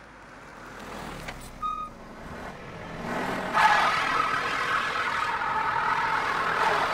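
A truck engine revs up about three seconds in and keeps running hard under load, as a tow truck hauls a stuck car out on a rope. The engine carries a steady whine. A short beep sounds about a second and a half in.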